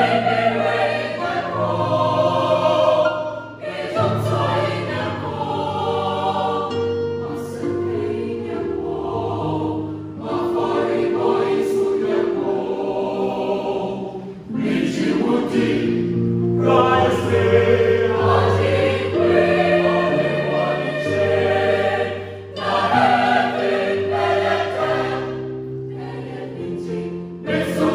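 Church youth choir singing in several parts, with a low bass line under the upper voices. The singing goes phrase by phrase, with short breaks between phrases.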